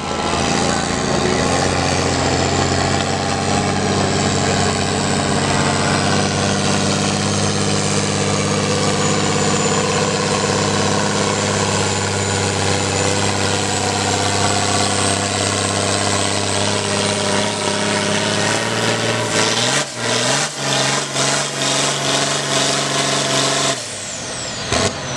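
John Deere diesel farm tractor pulling a weight-transfer sled, its engine running steadily under heavy load for about eighteen seconds. As the pull ends, the engine note dips and rises again and turns uneven and pulsing for a few seconds. The sound then cuts off sharply near the end.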